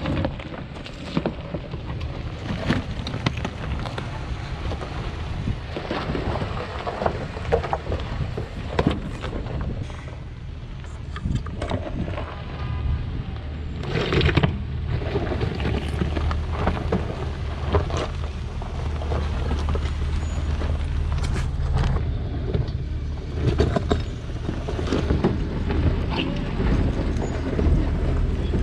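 A vehicle on the move: a steady low engine hum with scattered knocks and rattles.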